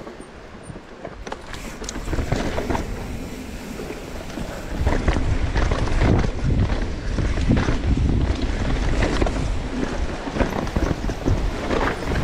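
Wind buffeting the camera microphone together with the tyre and trail noise of a mountain bike descending a dirt trail, with rattling knocks from the bike over bumps. The noise builds about two seconds in and grows loud and rumbling about five seconds in as speed picks up.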